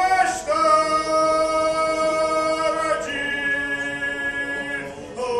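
Men singing together without accompaniment, holding two long notes: the second one starts about three seconds in, and the voices fall away briefly just before the end.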